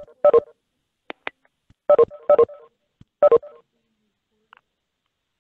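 Short electronic beeps from a video-conference call, sounding five times over about three and a half seconds, some in quick pairs, with two faint clicks between them. They are the call's notification tones as participants leave the meeting.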